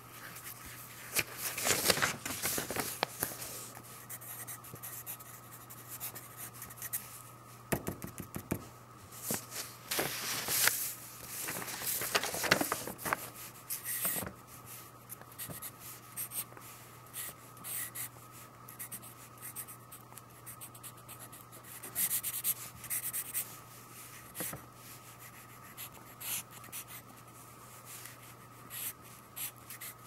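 Pencil sketching on paper: short, irregular scratchy strokes, with several louder runs of quick back-and-forth scratching. A faint steady hum runs underneath.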